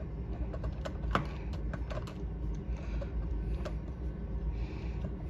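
Irregular small clicks and taps of fingers handling a smart deadbolt's parts, fumbling to plug its short wire into a tiny connector, with a sharper click about a second in.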